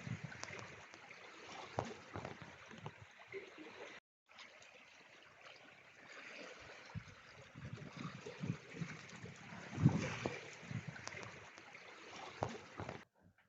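Wind buffeting the camera microphone in irregular gusty rumbles over a steady outdoor hiss, with a brief dead-silent break about four seconds in.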